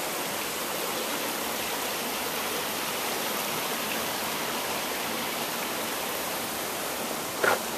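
Running water of a gorge stream flowing over a rocky bed: a steady, even rushing hiss. Near the end, one brief louder sound cuts through it.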